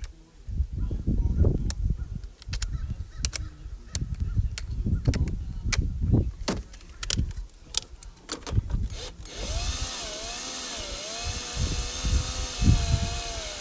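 Clicks and low knocks of tools and hardware being handled, then about nine seconds in a power drill starts and runs steadily with a wavering whine, driving the horn's mounting nut.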